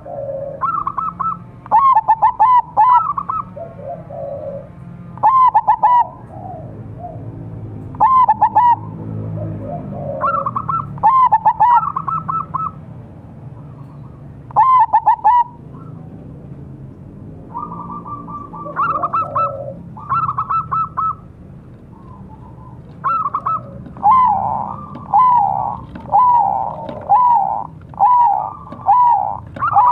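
Zebra dove (perkutut) cooing: short rippling phrases repeated every few seconds, with a quicker run of coos near the end.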